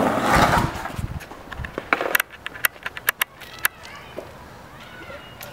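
Skateboard wheels rolling on asphalt, ending about half a second in with a few knocks of the board. A run of sharp clicks follows later.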